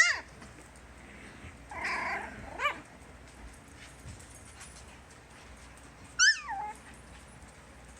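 Puggle puppies giving short, high-pitched whines and yelps, four cries in all. The last cry, about six seconds in, falls in pitch.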